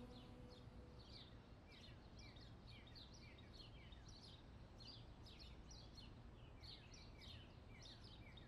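Faint birdsong: many short, quick downward chirps repeating throughout, over a low background rumble. The last held note of the music fades out about a second in.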